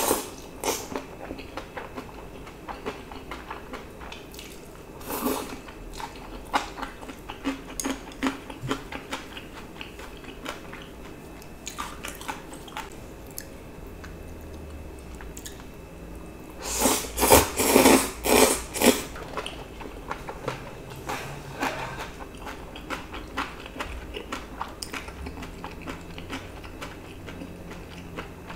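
Close-miked eating sounds: a person chewing and slurping thin wheat noodles with spicy stir-fried webfoot octopus and pork belly, with many small wet mouth clicks. There is a louder run of slurping and chewing about seventeen seconds in.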